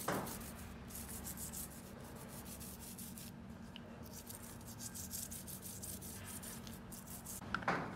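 Toothbrush scrubbing a rusty motorcycle drive chain, quick repeated bristle strokes across the metal links, wet with a dish soap and gasoline mix, working the rust loose.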